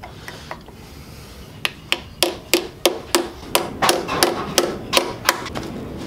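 Hammer tapping plastic end plugs into the tube ends of steel motorcycle crash bars. A steady run of a dozen or more sharp taps, about three a second, starting about a second and a half in.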